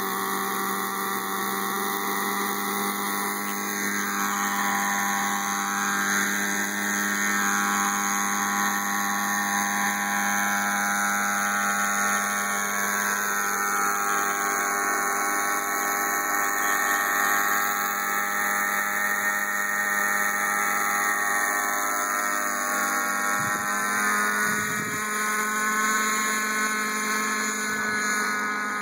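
Thunder Tiger Raptor 50 nitro RC helicopter running at flying speed: its .50-size glow engine buzzes steadily with the rotor blades whirring. The pitch wavers up and down as it lifts off the pad and climbs away.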